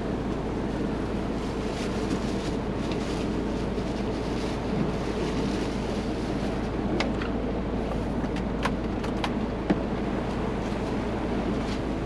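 Fishing boat's engine running steadily as it comes into harbour, with a few sharp clicks about seven to ten seconds in.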